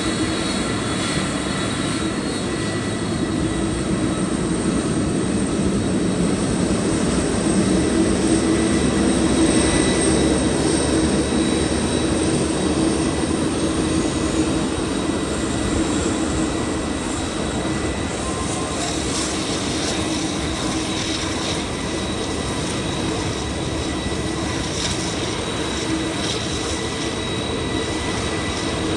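Airbus A330-300's General Electric CF6-80E1 turbofan jet engines running steadily: a broad jet rumble with steady high-pitched whining tones, swelling slightly louder about a third of the way in.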